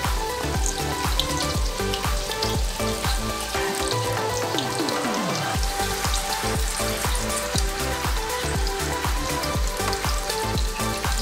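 Batter-coated chicken lollipops deep-frying in hot oil, a steady sizzle, under background music with a steady beat; the beat drops out briefly near the middle with a falling sweep.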